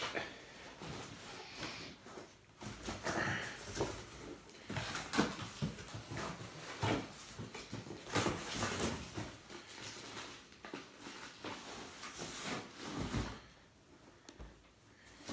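Cardboard box and packaging being handled as items are taken out of a parcel: irregular rustling, scraping and light knocks on a table.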